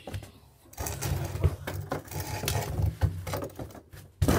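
Close handling noise at the microphone: rustling, rubbing and knocking as things are moved right by the device, ending in one loud thump near the end.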